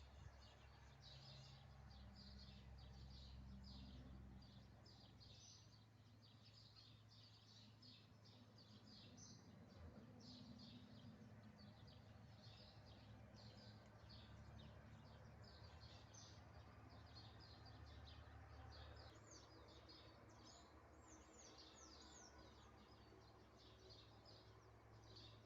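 Faint chorus of small birds chirping, many short high chirps throughout, with a few falling notes near the end, over a low steady hum.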